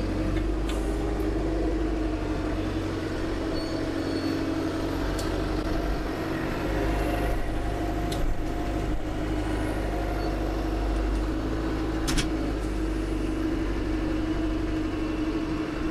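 Branson compact tractor's diesel engine running steadily under load while its front-loader root grapple digs stumps out of a dirt pile, with a single sharp knock about twelve seconds in.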